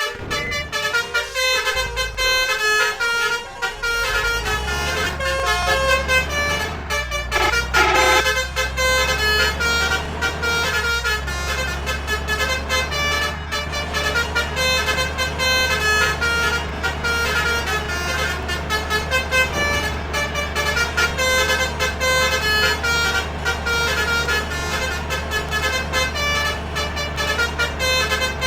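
Bus basuri horns tooting quick, changing melodies over a running bus engine, with a louder blast about eight seconds in.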